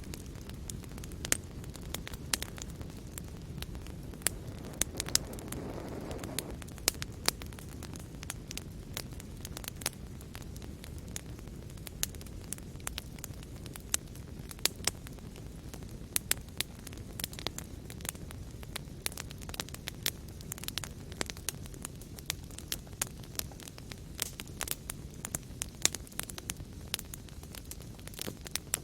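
Fireplace fire crackling: a steady low rush of flames with frequent sharp pops and snaps, and a brief soft swell about five seconds in.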